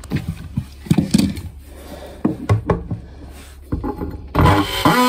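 Knocks and handling clatter, then near the end a DeWalt brushless oscillating multi-tool starts up and runs with a steady buzz, its blade set against pine tongue-and-groove cladding.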